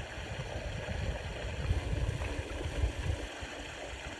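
Wind buffeting the microphone outdoors: a low, uneven rumble over a steady hiss, easing off a little past three seconds in.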